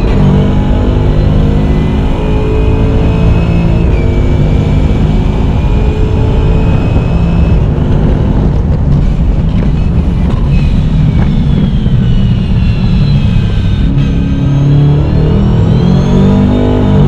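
Holden Commodore VF's V8 engine running hard through its sequential gearbox, revving and changing pitch with gear changes. It eases through a rougher, lower stretch in the middle, then climbs in pitch again under acceleration near the end.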